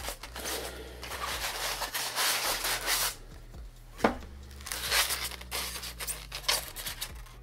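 A small cardboard product box being opened and handled by hand: rubbing and tearing sounds, with one sharp click about four seconds in.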